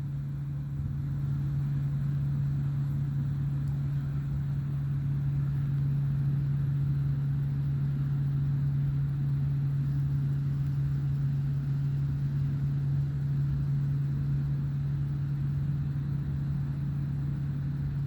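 A steady low mechanical hum, like an idling engine or running motor, with a faint even hiss above it.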